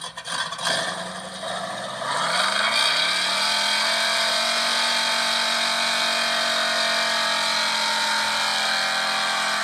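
An engine revving up: its pitch rises for about a second, then holds steady.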